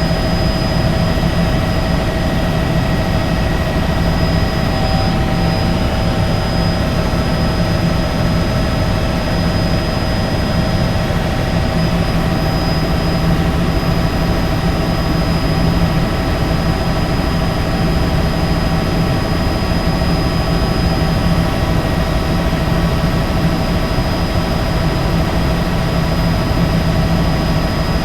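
Helicopter running steadily at a constant level, a broad rushing rotor and engine noise with a steady high turbine whine, as when hovering or idling.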